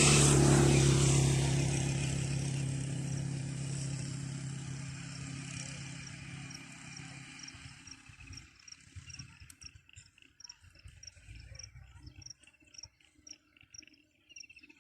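A motor vehicle passing close by, its engine hum loudest at the start and fading away over several seconds. After it fades, a regular high-pitched chirp repeats about twice a second.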